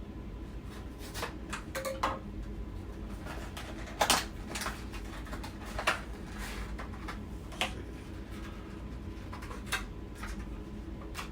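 Hands working open a tightly wrapped small product package: irregular clicks, crinkles and scrapes of cardboard and plastic, with two sharp snaps about four and six seconds in, over a low steady hum.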